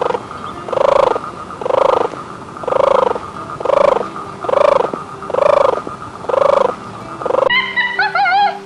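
An animal calling over and over, about one pitched call a second, nine in all. Near the end comes a short wavering, whistle-like call.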